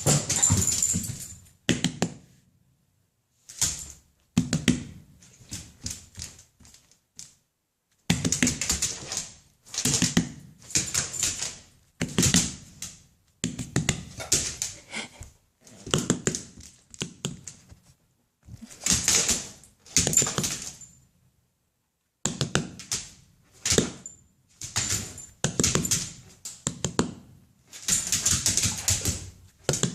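A malamute-beagle mix puppy's claws clicking and paws thumping on a hard floor in a 'tap dance': quick bursts of rapid tapping, each about a second long, with short pauses between and a few longer breaks.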